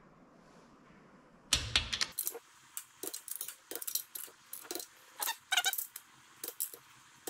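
Adjustable torque wrench and socket tightening the cylinder-head nuts of a VW 1300 air-cooled engine to the second-stage setting of 27 newton metres. A knock about a second and a half in, then a run of irregular metallic clicks and clinks as the wrench ratchets and the socket is moved onto the next nut.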